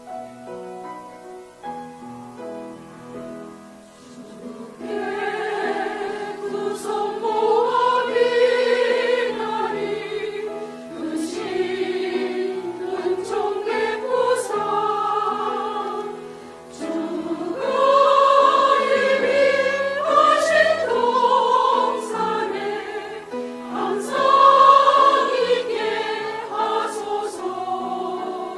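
Church choir singing a hymn with keyboard accompaniment. The accompaniment plays alone for the first few seconds, and the choir comes in about five seconds in.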